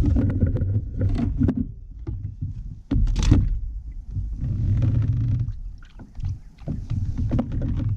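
Irregular bumps, rubs and knocks of handling aboard a fishing kayak, with a louder clatter about three seconds in.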